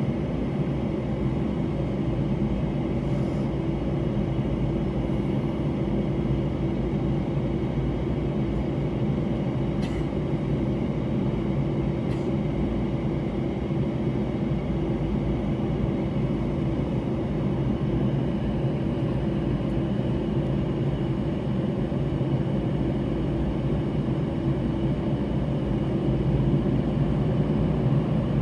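Jet airliner's underwing turbofan engines running at idle, heard from inside the cabin: a steady hum and low drone, a little louder near the end.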